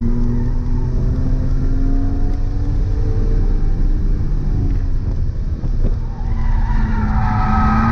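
BMW E46 M3's straight-six engine running hard at track speed under a heavy low rumble. Near the end, tyres squeal in rising, wavering tones as the car starts to skid.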